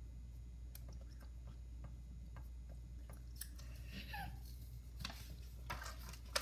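Faint rustling and handling noises with scattered light clicks over a steady low hum, ending in one sharp click.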